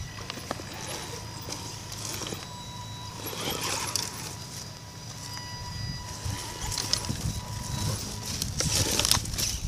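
Axial Wraith Spawn RC rock crawler's electric drive whining steadily as it crawls, with sticks and dry leaves crackling and rustling under its tyres, louder about three and a half seconds in and again near the end.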